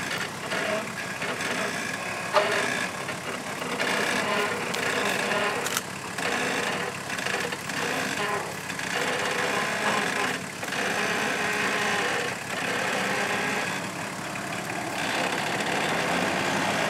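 Nissan Patrol GR four-by-four's engine running at low revs as the vehicle crawls over uneven sandy ground, with a sharp knock about two and a half seconds in.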